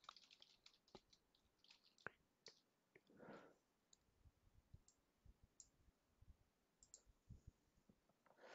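Faint, scattered computer keyboard keystrokes and mouse clicks against near silence.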